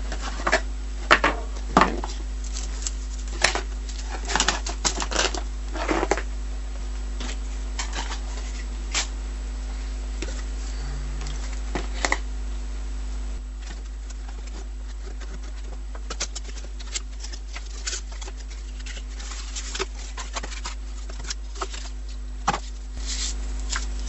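Webcam packaging and its contents being handled: irregular clicks, taps and rustles of plastic and cardboard, busiest in the first several seconds and sparser later, over a steady low hum.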